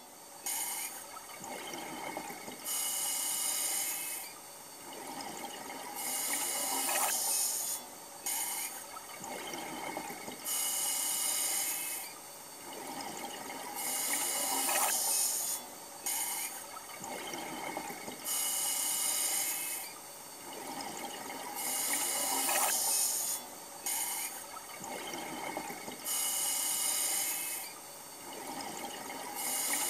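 Scuba diver breathing through a regulator, heard underwater: a hissing inhale about every four seconds, each followed by a bubbling exhale, about eight breaths in all.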